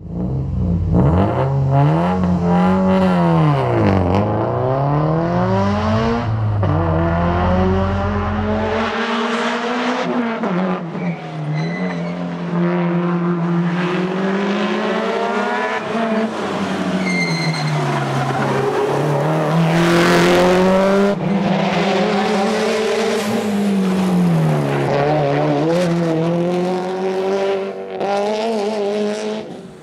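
Tarmac rally car's engine driven hard through a run of bends, its pitch climbing under acceleration and dropping again at each gear change or lift, again and again.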